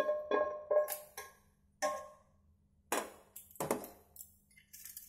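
Cooked clams sliding out of a frying pan onto a plate, shells clinking against the pan and the plate: a quick run of sharp clinks with a short ring in the first second, then a few single knocks.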